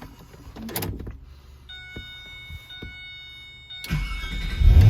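Ford GT being started: a few clicks, then a steady high electronic chime for about two seconds as the ignition is switched on. Near the end the starter cranks and the supercharged 5.4-litre V8 fires and revs up.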